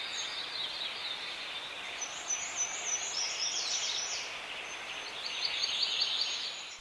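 Birds chirping in short runs of quick repeated high notes over a soft steady hiss.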